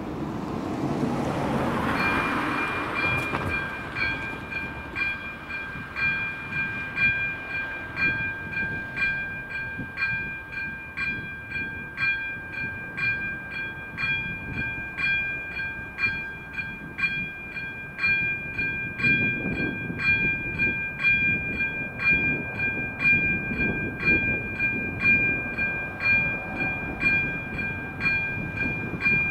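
Level crossing warning bell starts about two seconds in and rings on in an even, repeating ding at a steady pace. A low rumble joins in from about two-thirds of the way through.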